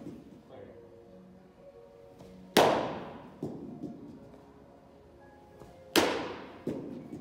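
Baseball popping into a catcher's mitt twice, about three and a half seconds apart, each sharp smack ringing on in a large room and followed under a second later by a softer knock. Faint background music.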